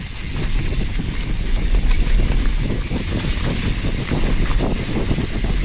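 Mountain bike descending a dry dirt trail at speed: wind buffeting the camera microphone over the tyres rolling on dirt and leaf litter, with a continuous irregular rattle of the bike over the bumps.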